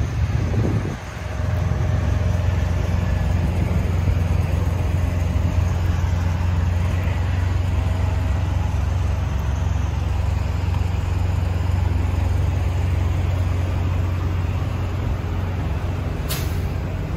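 A truck engine running steadily with a low rumble, and a single sharp click near the end.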